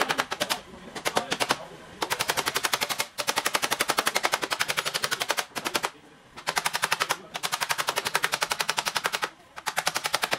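Small hammer tapping rapidly on a car's front fender to work out a dent without repainting. It goes in fast runs of about ten taps a second, each run lasting one to two seconds, with brief pauses between.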